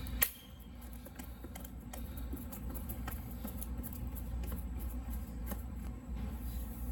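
Nut driver unscrewing a 10 mm nut from the back of a plastic motorcycle side cover. A sharp click comes about a quarter second in, then faint, scattered small ticks of the tool turning, over a low steady hum.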